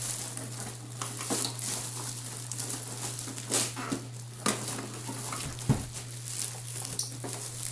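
Clear plastic bag rustling and crinkling as a printer is handled and worked out of it, with scattered handling knocks and one sharper thump a little before six seconds in.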